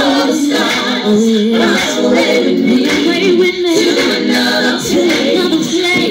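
Live R&B concert: a woman singing into a microphone over her band, heard through a phone in the audience, so the sound is loud but thin, with almost no bass.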